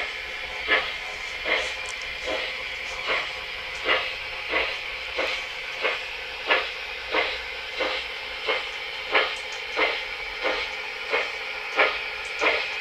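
Model Union Pacific Big Boy steam locomotive running, its sound effect giving a steady steam chuff about every 0.7 seconds over a continuous hiss.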